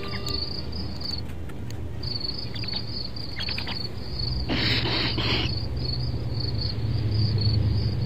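Background soundtrack: a high, rapidly pulsing chirping, of the kind crickets make, over a low steady drone, with a brief rush of noise about four and a half seconds in.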